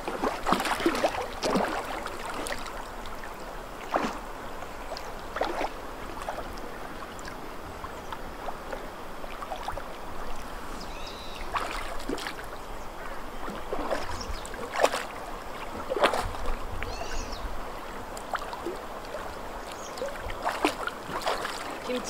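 Shallow river running, with scattered splashes as golden retrievers wade through the water.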